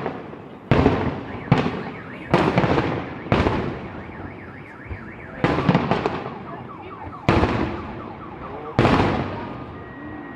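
Aerial fireworks bursting, about seven loud bangs spaced a second or two apart, each dying away in a long echoing rumble.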